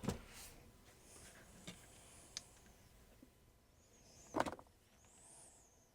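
Faint handling sounds of a small plastic toy part and tools on a workbench: a few light clicks and knocks, with one short, louder squeak-like sound about four seconds in.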